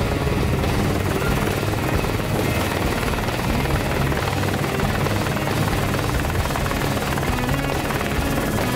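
Steady helicopter engine and rotor noise, even and unbroken.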